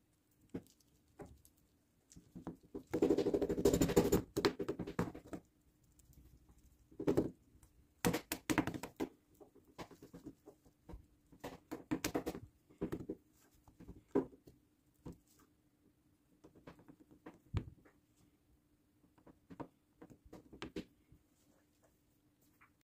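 Handwork on model-scenery material: irregular bouts of scraping, rustling and small knocks. The loudest is a dense spell of scraping about three to four and a half seconds in, over a faint steady hum.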